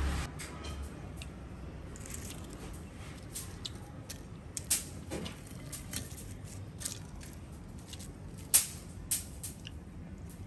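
Chopsticks working through crisp, deep-fried moray eel pieces on a plate: scattered light clicks and crackles of the crunchy coating, a few sharper ones among them.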